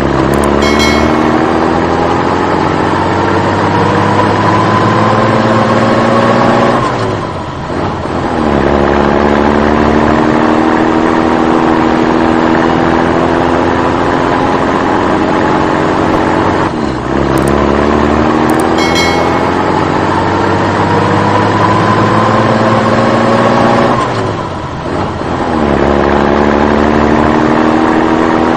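A vehicle engine accelerating, dubbed over the picture: its pitch climbs slowly for seven to nine seconds, drops back, and climbs again, over and over like a looped sound effect.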